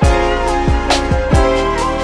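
Background music with a beat: held instrumental notes over sharp percussion and deep bass-drum hits.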